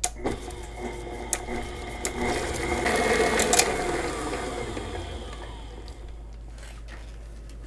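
Electric stand mixer running, its flat beater paddle beating eggs into creamed butter and sugar in a steel bowl. The motor hum swells in the middle and eases off after about five seconds.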